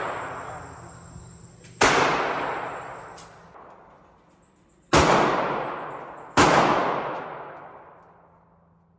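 Three gunshots, the first about two seconds in and the last two a second and a half apart, each followed by a long echoing decay typical of an indoor shooting range.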